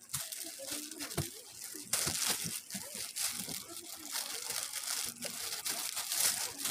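Clear plastic garment bags crinkling and rustling as they are handled, coming and going unevenly.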